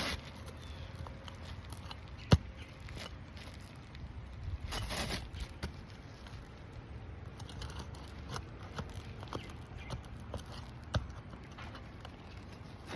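Asphalt roof shingle and its nails being pried out with a hand tool: scattered clicks and a brief scrape, with one sharp knock about two seconds in and another about eleven seconds in.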